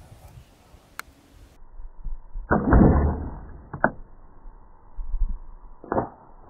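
A bow shot at a Cape buffalo: an arrow loosed about two and a half seconds in, the loudest sound, followed by two shorter sharp knocks near four and six seconds.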